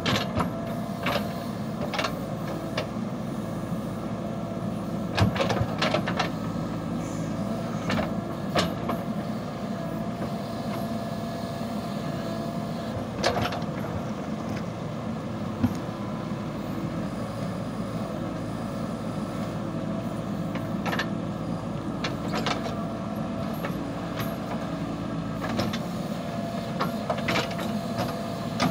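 JCB backhoe loader's diesel engine running steadily while the backhoe arm digs, with a thin steady whine and scattered sharp knocks and scrapes as the bucket works into earth and stone.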